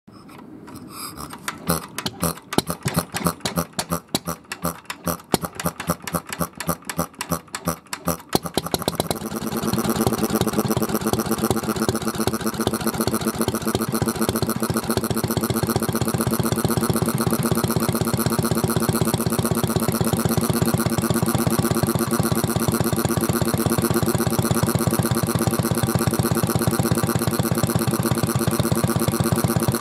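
A Kubota AN single-cylinder kerosene stationary engine is started by spinning its flywheel by hand. It catches with loud, uneven beats, then about eight seconds in settles into a steady, faster run.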